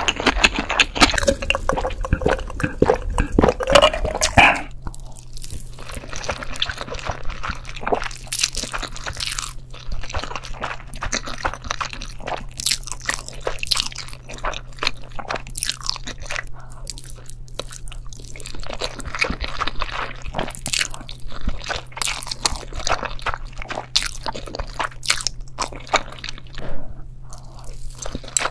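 Irregular close-up crunching and crackling, densest and loudest in the first few seconds, with a faint steady low hum coming in about four seconds in.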